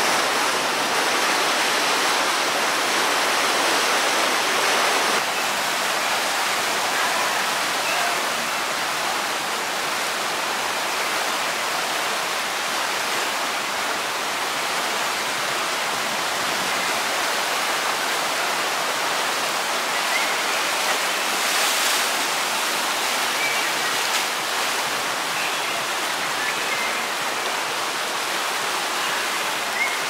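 Churning white water rushing steadily through a river rapids ride channel, a bit louder and brighter for the first five seconds.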